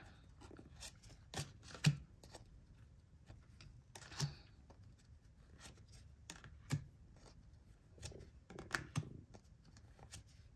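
Glossy oracle cards being flipped through by hand: quiet, scattered flicks and slides as a card is drawn off the front of the deck and tucked behind, a few times.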